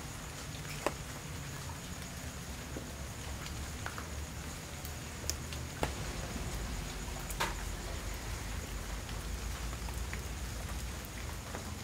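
Quiet background ambience: a low steady rumble and a faint high steady whine, with a few scattered sharp clicks, the sharpest about a second in and others around five to seven and a half seconds.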